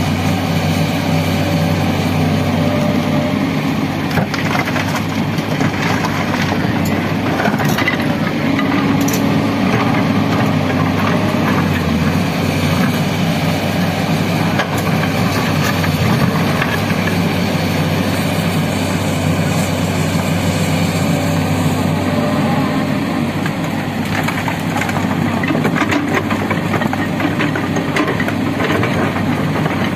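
SANY hydraulic crawler excavator's diesel engine running steadily under load while it digs soil and dumps bucketloads into a dump truck bed. Scattered cracks and crunches of earth and rock are heard over the engine.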